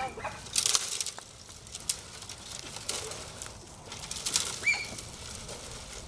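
Cut elm branches swishing and crackling as they are dragged through grass, in three or four rough sweeps a second or two apart.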